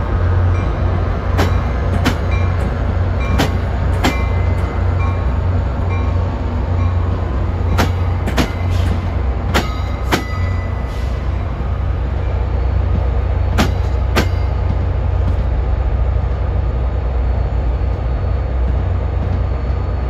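Diesel locomotive engine running with a steady low rumble as a train rolls slowly by. Its wheels click over rail joints in pairs of sharp clicks about half a second apart, a pair every couple of seconds.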